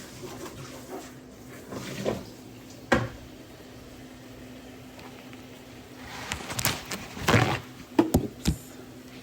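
Kitchen work noises: scattered knocks and clatter of things being handled, with a single sharp knock about three seconds in and a busier run of clatter from about six to eight and a half seconds in, over a faint steady hum.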